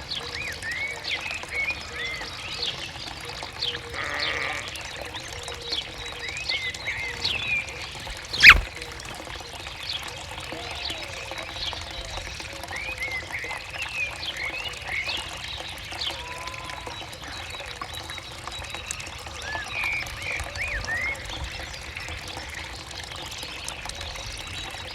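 Open countryside ambience with many small birds chirping in short quick calls throughout. A single sharp click or knock sounds about eight and a half seconds in, the loudest moment.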